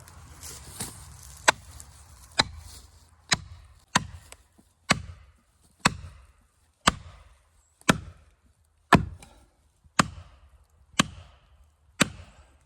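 About a dozen heavy blows struck on wood at a steady pace of about one a second, each a sharp crack with a short ring.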